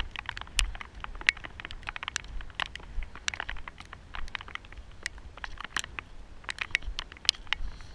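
Hiking boots crunching on loose shale scree, irregular steps with many sharp clinks of flat rock fragments knocking together and of a trekking pole tip striking stone.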